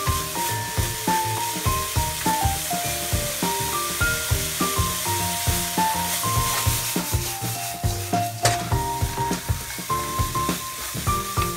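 Julienned burdock root and carrot sizzling in a hot oiled wok as they are stirred and tossed with wooden chopsticks, with short scraping strokes against the pan. A background music melody plays over it.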